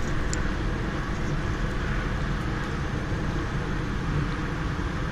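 Steady outdoor background noise: a low rumble with an even hiss over it, with no single clear event.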